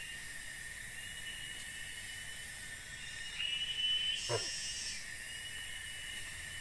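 Steady high-pitched drone of tropical forest insects, several calling at once on slightly different pitches, swelling louder for a second or two midway. A brief falling note cuts through a little after four seconds in.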